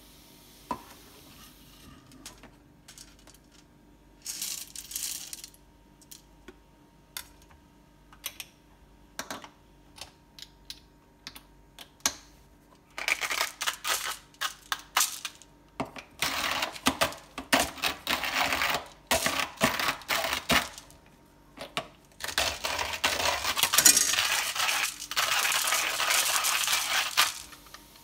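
Coffee beans rattling into a Hario Mini Mill hand grinder, then the grinder cranked by hand, the hard beans crunching between the burrs in long runs with brief pauses.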